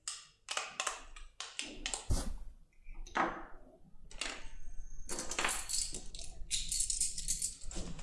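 Small metal parts handled on a bench: the foil-wrapped impression tool and brass lock cylinders clicking and knocking, with a heavier thunk about two seconds in, then a steady metallic rattling and scraping from about five seconds.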